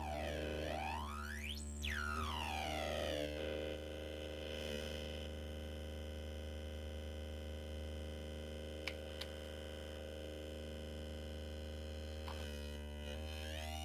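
MFOS Weird Sound Generator, a homemade analog noise synth on a breadboard, droning a steady buzzy electronic tone. Its pitch swoops up and down in the first few seconds and again near the end, and two short clicks come about nine seconds in.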